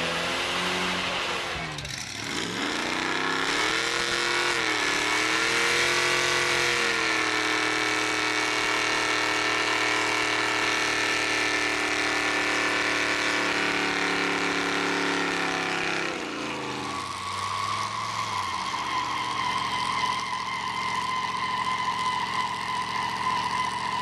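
Car engine revved up and held at a steady high speed for about ten seconds, then let back down; a steadier, higher engine tone carries on near the end.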